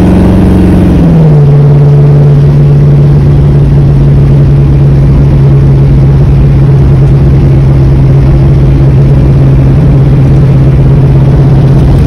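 Fuel-injected engine of a 1940 Ford driving down the road, heard from inside the cab. Its note is high at first, drops to a lower pitch about a second in, then holds steady.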